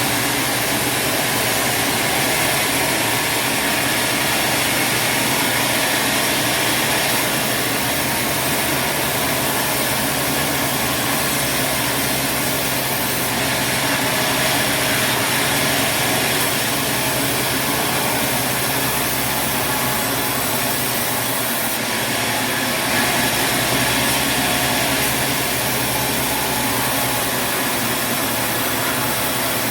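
Sawmill machinery running steadily: an engine hum under a dense, even noise that holds without a break.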